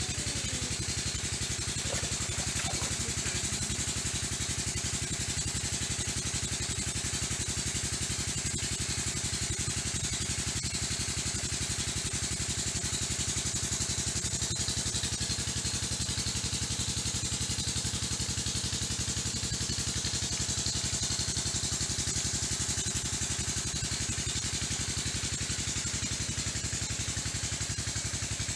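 A small engine running steadily at an even idle, unchanged throughout, with a constant high hiss above it.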